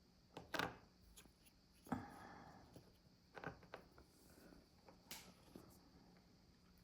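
A few faint, sharp clicks and light knocks with a brief rustle, as of a cookie package being handled, over quiet room tone.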